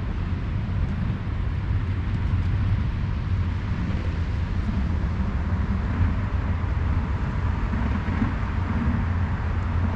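Steady low rumble of outdoor background noise with a light hiss over it, with no distinct event standing out.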